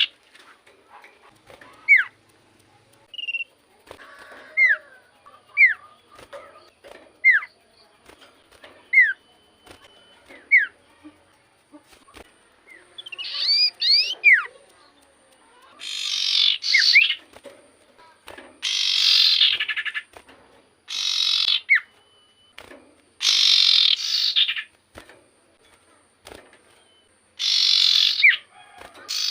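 Common iora (cipoh) in full song: thin downslurred whistles about once a second, then from about halfway on, loud harsh chattering bursts about a second long, repeated, with single whistles between them.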